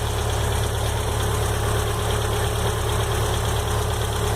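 Volkswagen AP four-cylinder engine idling steadily with a 'tec-tec-tec' ticking. The tick shows up when the engine is warm and has not been cured by a rebuild, a new cylinder head or new hydraulic lifters.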